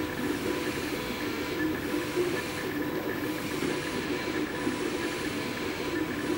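MakerBot 3D printer printing: its stepper motors whine in a quick run of short tones that keep jumping in pitch as the extruder head moves, over a steady hiss.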